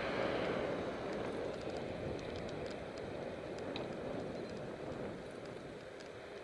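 Wind rushing over the microphone of a camera mounted on a moving bicycle, with tyre noise on asphalt and a few faint ticks, easing slightly toward the end.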